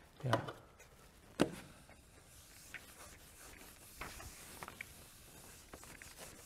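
Whiteboard eraser wiping the board, a faint rubbing with small ticks, after one sharp knock about a second and a half in.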